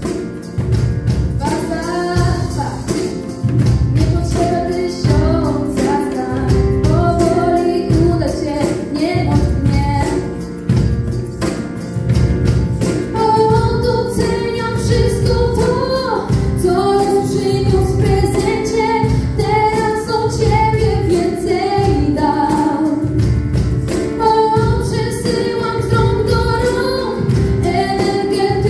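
Two young female vocalists singing a song live through microphones, backed by a band on keyboard, drum kit and cajón keeping a steady beat.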